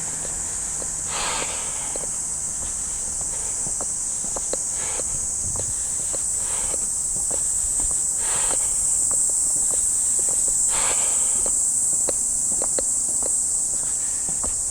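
Steady, loud, high-pitched drone of a summer cicada chorus, with footsteps clicking on pavement underneath and a few brief whooshes passing through.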